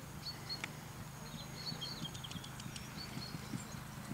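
Faint hoofbeats of a horse cantering on grass, becoming more frequent toward the end as it approaches, with small birds chirping in short repeated notes.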